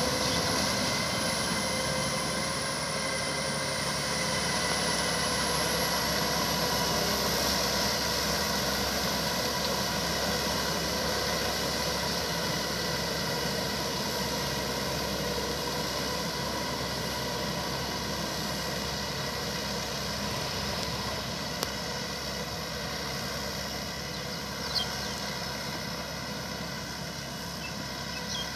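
Small farm tractor's engine running steadily under load as it churns paddy mud with a rear rotary tiller, slowly fading as it moves away. A couple of brief clicks sound in the later part.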